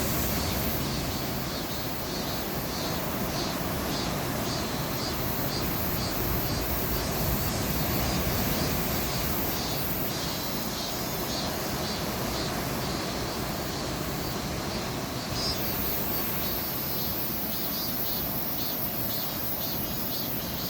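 Sea waves surging and breaking against coastal rocks, a continuous rush of surf.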